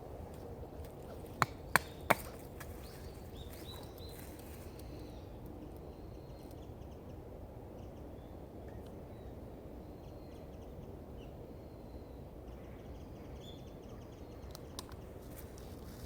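Three sharp knocks in quick succession, about a third of a second apart, then a steady low outdoor background with faint, short, high chirps now and then.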